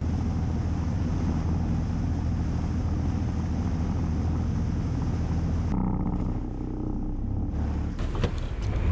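Fishing boat's engine running under way, a steady low drone with water rushing along the hull. The sound changes abruptly about six seconds in, and a few sharp knocks come near the end.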